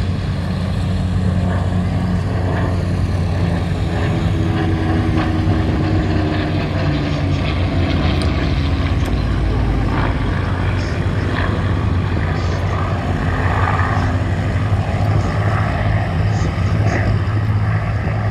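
Spitfire and Hurricane flying a display, their V12 piston engines droning steadily with a deep low rumble. Their pitch falls as one aircraft passes, about four to eight seconds in.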